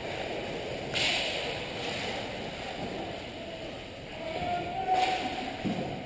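Ice hockey rink sound during play: a steady din of skating and rink noise, with two sharp knocks from sticks or puck, about a second in and about five seconds in.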